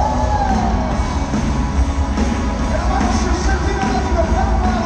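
Live worship band playing amplified in a large arena, with heavy bass and a lead voice singing over it.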